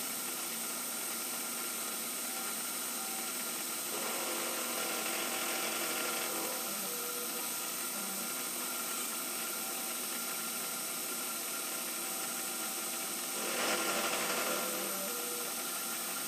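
Milling machine spindle running at low speed with a high-speed steel drill cutting into a stainless steel part, a steady machine whine with hiss. The cutting noise grows louder about four seconds in and again near the end.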